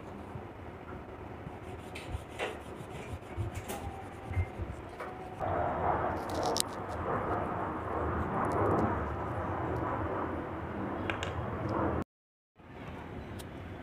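Pastel being rubbed and scraped over paper by hand, a continuous scratchy rubbing with small ticks, louder and denser in the middle stretch. The sound cuts out for about half a second near the end.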